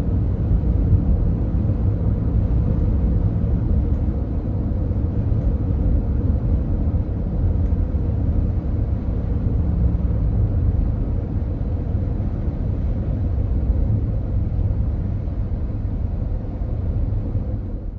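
Steady low road and engine rumble of a car driving at speed, heard from inside the car.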